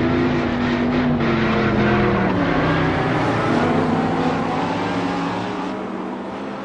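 Added car engine sound effect: an engine running, its pitch falling about two to three seconds in, then holding lower and growing a little quieter near the end.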